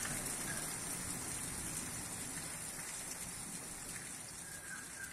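Steady rain falling at the tail end of a thunderstorm, gradually getting quieter.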